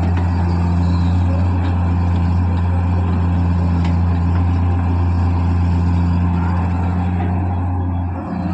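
Heavy machine's diesel engine running steadily with a deep, even drone; the level dips briefly near the end.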